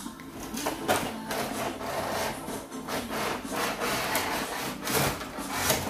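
A cardboard toy box being pulled open and handled: a run of rough scraping and rubbing of cardboard against cardboard, with the sharpest scrapes about a second in and near the end.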